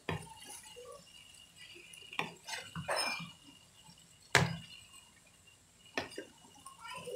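Wooden spatula stirring vegetables in a non-stick wok: soft scraping and rustling, broken by four sharp knocks of the spatula against the pan, the loudest about halfway through.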